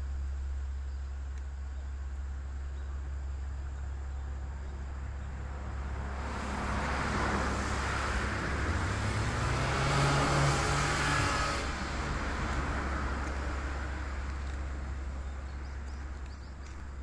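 A motor vehicle passes by, its engine and running noise building up, peaking about halfway through and then fading away, over a steady low hum.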